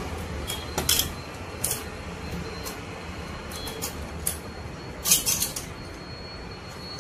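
Sharp metallic clinks and taps of a screwdriver and loose engine parts knocking against a stripped scooter engine's steel studs and cylinder, in scattered bursts. The loudest is a quick cluster about five seconds in.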